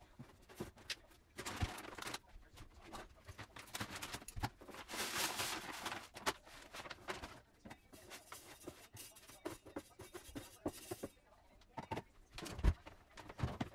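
Rustling as a liner is spread into a plastic litter box, then a few seconds of granular cat litter pouring from a bag into it, a steady hiss midway through. Scattered clicks and knocks follow from handling the box, with one louder thump near the end.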